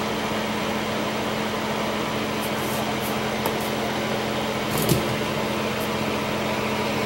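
Steady fan-type hum and hiss with a low hum tone underneath, and a soft knock about five seconds in.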